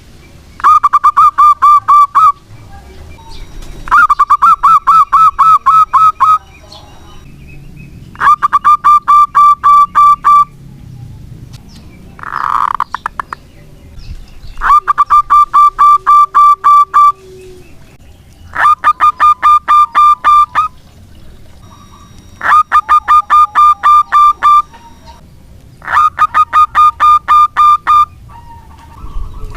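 Zebra dove (perkutut) singing: seven phrases of rapid staccato cooing notes, each about two seconds long, repeated about every four seconds and very loud. A short, different call breaks in about halfway through.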